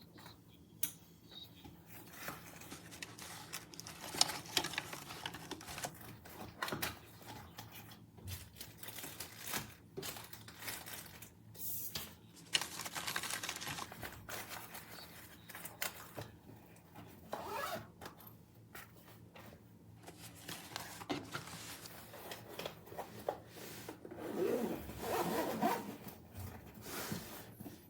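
Irregular rustling, scraping and clicking of objects being handled, with no steady tone. A longer stretch of scraping comes about twelve to fourteen seconds in, and another near the end.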